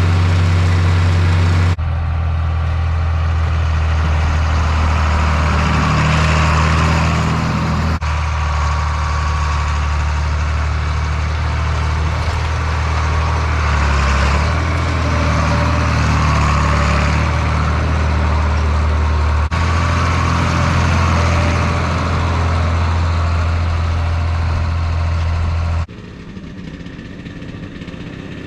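John Deere 4020 tractor engine running steadily, heard in several edited clips that change abruptly a few times; quieter near the end.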